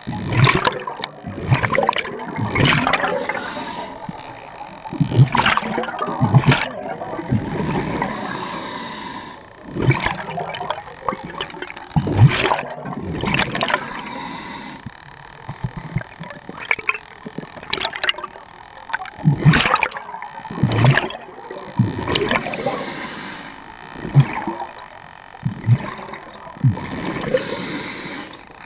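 Scuba diver breathing through a regulator underwater, heard close up: repeated gurgling bursts of exhaled bubbles in clusters every few seconds, with a brief hiss in between as air is drawn in.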